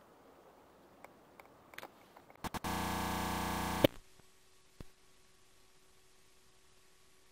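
Faint scattered clicks, then a loud electronic buzz that lasts about a second and cuts off abruptly with a sharp pop; after it only a faint steady hum.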